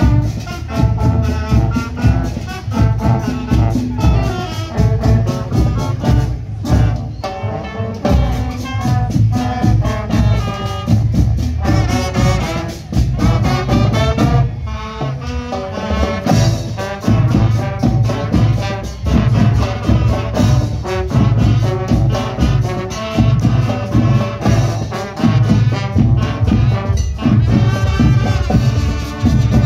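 Marching band playing an upbeat tune: saxophones and trumpets over a sousaphone bass and a steady drum beat.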